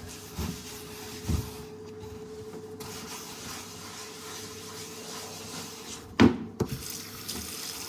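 Hands scrubbing a wet baking-soda paste over a cutting board, a steady rubbing, with a single knock about six seconds in.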